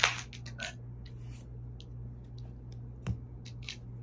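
Trading cards being handled and slid apart by hand: a run of short, soft scratchy rustles, with one sharper click about three seconds in, over a steady low hum.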